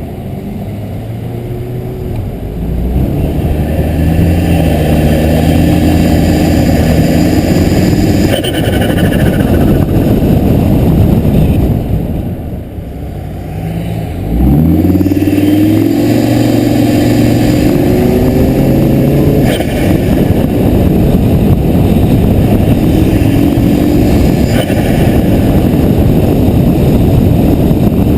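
Volvo S60R's turbocharged inline-five under hard acceleration, its pitch climbing through the revs, easing off with a dip in level about twelve seconds in, then pulling hard again. Its diverter valve line is disconnected, so excess boost isn't vented and the turbo's compressor surges and flutters when the throttle closes.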